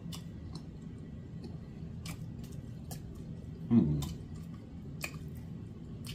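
Soft wet mouth clicks and lip smacks from a man's mouth, scattered a few times. About four seconds in there is one short vocal sound that falls in pitch.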